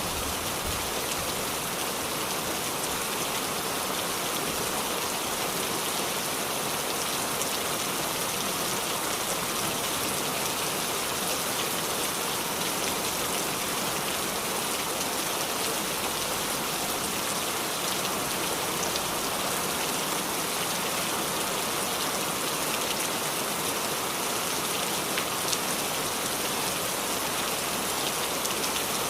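Heavy rain falling steadily, a dense even hiss of drops with occasional louder individual drop ticks.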